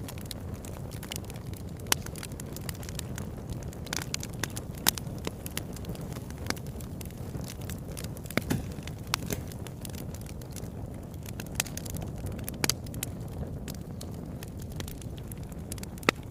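Fire burning in a fireplace: a steady low rumble of flames with frequent sharp crackles and pops, a few of them louder than the rest.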